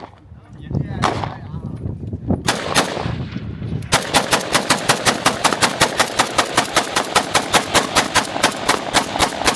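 Gunfire: a few separate shots, then a long, rapid, evenly spaced string of about six shots a second that runs for about five seconds before stopping.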